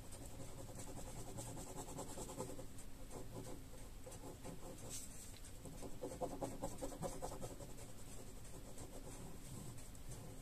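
Fine-tip pen scratching on paper in quick, repeated hatching strokes, shading a drawing.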